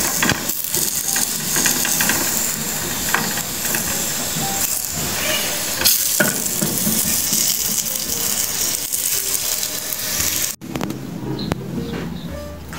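Food frying in a pan of hot oil: a steady sizzling hiss, with a few clicks and scrapes of a knife turning the pieces. The sizzle cuts off suddenly about ten seconds in.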